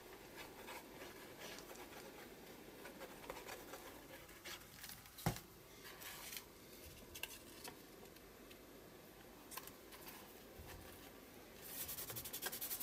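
Faint rustling of torn paper scraps being handled and pressed onto a glued journal page. One sharp knock comes about five seconds in. Near the end there is a quick scratchy rubbing as fingers smooth the paper flat.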